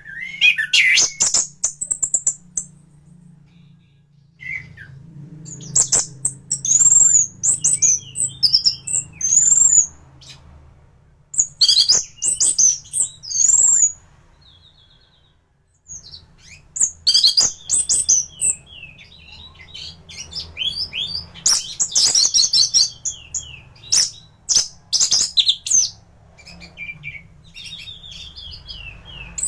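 Orange-headed thrush (anis merah) singing in full song: loud phrases of varied high whistles, quick trills and rapid runs of notes, separated by short pauses, with a gap of about two seconds halfway through. A faint low hum runs underneath.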